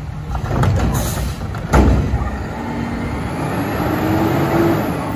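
Front-loader garbage truck running, its diesel engine rising in pitch as it revs up in the second half. A single loud bang comes about two seconds in.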